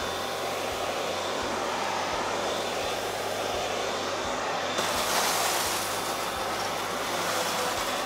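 Hoover CH54115 HushTone commercial upright vacuum running on a hard floor: a consistent, low motor sound with a steady hiss of airflow, which turns a little brighter and louder about five seconds in.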